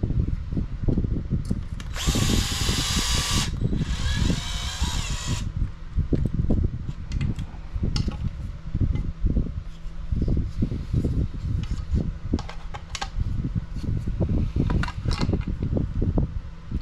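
Electric screwdriver driving small screws into an RC buggy chassis in two short runs, about two and four seconds in, the second rising in pitch. Small clicks of parts and tools being handled follow.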